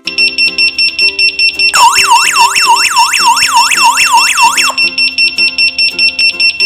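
Water leakage detector's built-in electronic alarm going off, the sign that water has been detected: rapid high-pitched beeping, about six beeps a second. For about three seconds in the middle, and again briefly near the end, a fast rising siren sweep repeats about four times a second over the beeping.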